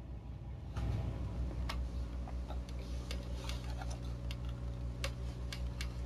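Faint, irregular plastic clicks and taps from a handheld camcorder being turned over in the hands, over a steady low electrical hum.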